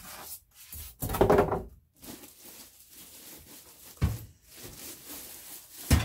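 A plastic-wrapped PC case being handled and moved on a desk, with its plastic film rustling. There is a louder scraping rustle about a second in, and dull knocks about 4 s in and again near the end as the case is shifted.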